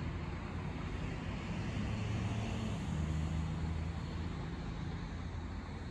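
A steady, low engine drone that swells slightly in the middle and then eases off.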